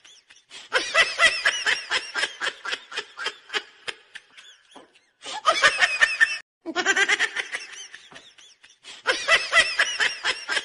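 Laughter in quick, high-pitched bursts, coming in four bouts with short breaks between them.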